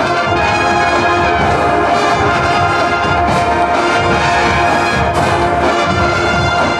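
A massed band of about 700 school musicians opening a piece with loud, sustained brass chords over drums.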